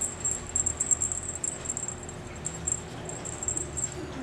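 A toy on a wand cat teaser being shaken and batted by a kitten, making rapid, irregular, high-pitched jingling that stops just before the end.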